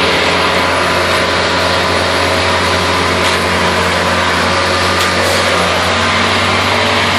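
Case skid-steer loader's diesel engine running steadily as the loader drives forward carrying a bucket of wet concrete.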